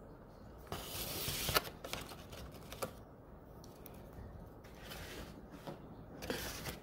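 Handling noises of a plastic takeout sushi tray and wooden chopsticks: rustling with sharp clacks, the loudest about a second and a half in, and another rustle near the end.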